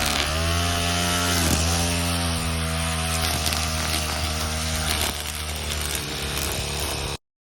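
A small engine runs steadily with a low buzz, its pitch dipping briefly a few times as if under load, then cuts off suddenly near the end.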